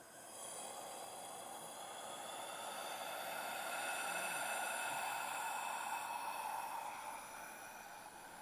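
Creature sound effect for a gas-exhaling zombie: a long, breathy hiss of escaping fumes that starts suddenly, swells to its loudest midway and fades out.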